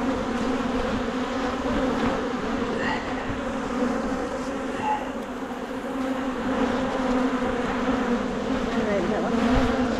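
Honeybees from an opened hive buzzing as a dense, steady hum, with single bees flying close by, their pitch gliding, near the end.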